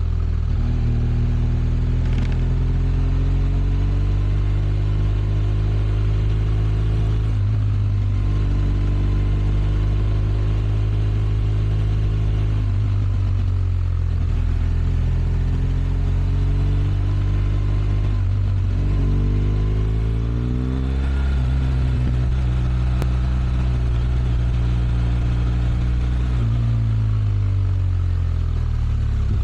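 BMW R1200 RS flat-twin boxer engine with stock exhaust, running steadily under load. Its pitch climbs slowly for several seconds at a time and drops back four times.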